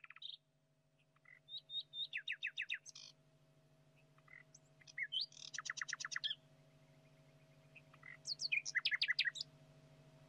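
A bird chirping in three quick runs of short, falling notes, about six a second, with pauses between the runs, over a steady low hum.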